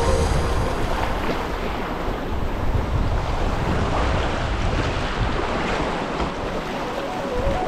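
Rushing whitewater of the Arkansas River, a steady noisy wash, with wind noise on the microphone.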